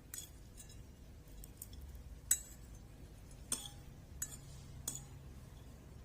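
Cutlery clinking against a dish in a handful of separate sharp clinks, the loudest a little past two seconds in.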